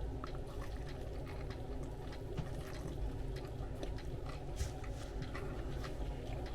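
Person chewing a mouthful of sub sandwich, with scattered small clicks over a steady low hum.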